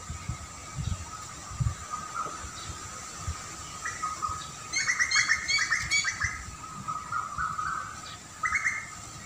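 A small songbird chirping: a quick chattering run of sharp notes about halfway through and a shorter call near the end. Underneath runs a faint, steady high-pitched hum.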